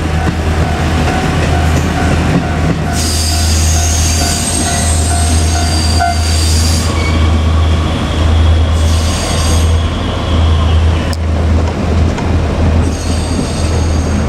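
JR Kyushu KiHa 200 diesel railcar running on the line with a steady low hum. Its wheels squeal in three bursts: from about three to seven seconds in, again around nine seconds, and near the end. A single sharp knock comes about eleven seconds in.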